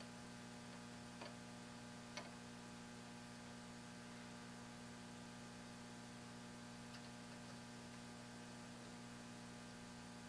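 Near silence with a steady low electrical hum and three faint ticks spread through it.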